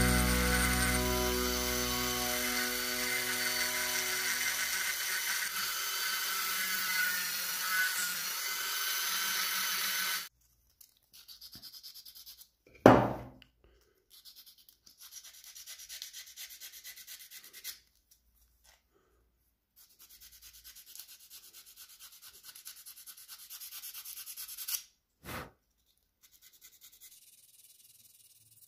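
Background music, a chord ringing and slowly fading, cuts off abruptly about ten seconds in. Then sandpaper rubbing by hand on a small carved wooden figure, in short spells of scratchy strokes separated by pauses, with two sharp knocks, one just before halfway and one near the end.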